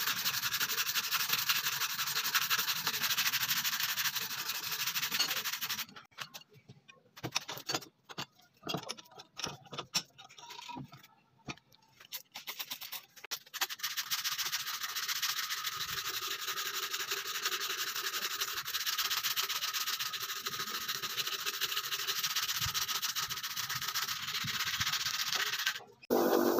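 Sandpaper wrapped around a stick rubbed rapidly back and forth by hand over a steel axe head, a dense scratchy rasping as the rust is sanded off. It stops about six seconds in, leaving a few light taps and clicks, and starts again about halfway through, running until just before the end.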